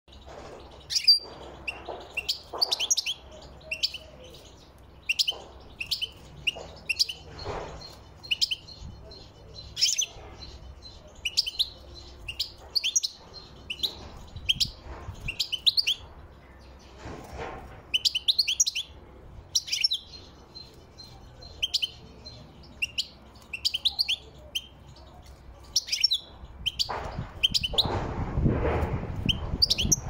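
European goldfinch singing: short, high twittering phrases repeated throughout. A low rumble swells in underneath near the end.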